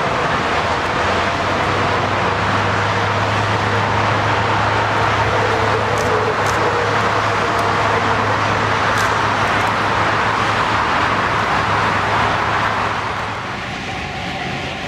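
Cargo jet's engines running as it passes, a loud steady noise with a low hum underneath that eases off a little near the end.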